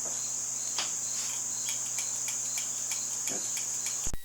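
Steady high-pitched trilling of crickets, with a low electrical hum under it and a few faint ticks; it all cuts off abruptly near the end.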